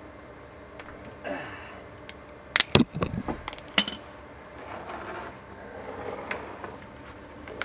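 Metal tools clinking and clattering on a concrete shop floor as a ratchet comes off the oil drain plug and is set down, with the loudest clinks about two and a half to three seconds in and one more near four seconds. The oil drain pan is then shuffled into place under the oil pan.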